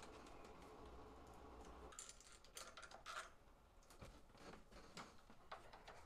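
Faint, scattered clicks and scrapes of a hand screwdriver turning out the screws of an old doorknob lockset and its latch plate.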